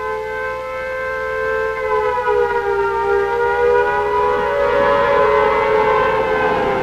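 Civil defense warning siren sounding a sustained, nearly steady tone made of two close notes, with slight dips in pitch. It grows louder about two seconds in.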